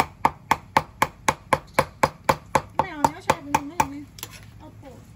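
A cleaver minces raw beef on a thick wooden chopping block, in steady, even chops at about four a second. The chopping stops about four seconds in.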